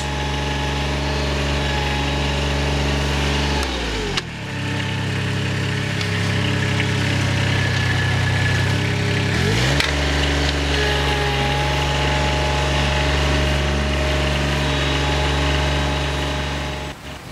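Toro Greensmaster 3250-D ride-on greens mower's diesel engine running steadily. Its speed drops sharply about four seconds in and climbs back up at about ten seconds.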